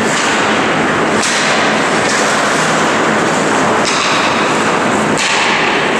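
Ice hockey play on a rink: sharp knocks of sticks and puck several times, over a loud, steady, noisy rush.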